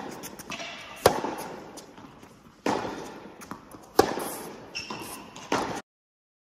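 Tennis ball struck by rackets and bouncing on an indoor court during a groundstroke rally: four loud hits about a second and a half apart, each ringing out in the hall's echo, with lighter taps between them. The sound cuts off suddenly near the end.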